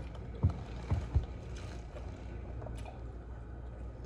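Eating and handling noises at the table during a mukbang: three dull, low thumps within the first second and a half over a steady low hum.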